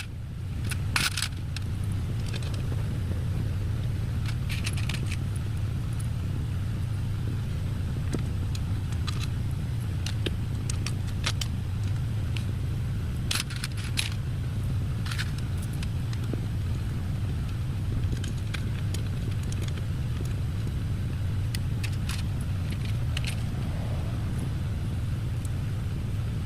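Light metallic clinks and jingles, scattered and irregular, over a steady low hum, like tools or small metal parts being handled.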